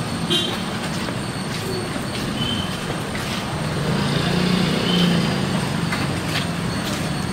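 Street traffic noise from vehicles passing on the road, with a heavier engine hum swelling about four to five seconds in.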